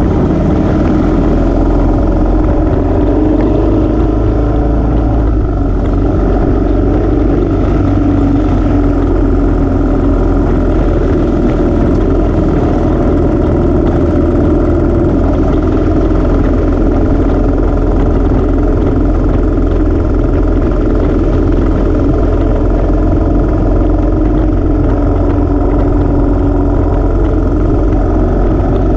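Royal Enfield motorcycle engine running steadily under way, heard from on board. Its pitch rises and falls a little through the bends, over a steady low wind rumble on the microphone.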